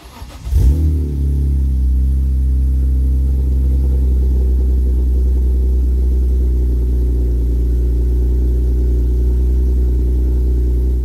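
BMW E46 M3's S54 straight-six engine starting, flaring up briefly as it catches and then settling into a steady idle.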